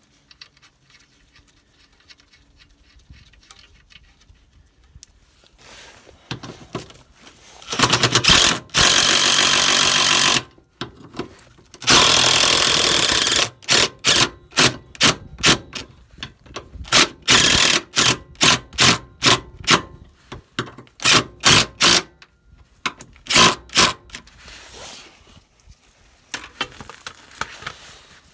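DeWalt cordless impact wrench hammering on the suspension arm's bolts. It runs in two long bursts, then in a quick run of many short trigger blips.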